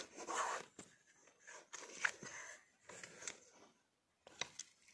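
Quiet rustling of cloth and handling noise as a camera hidden among clothes is moved and set in place, with a few sharp clicks and knocks.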